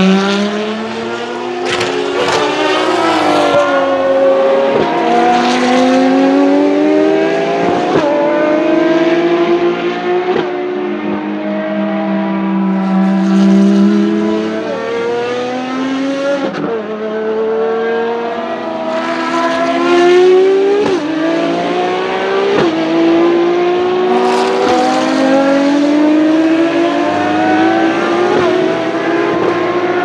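Ferrari XX-programme V12 track cars (FXX, 599XX) running hard. The engine pitch climbs and snaps down at each gear change, again and again, as the cars accelerate through the gears.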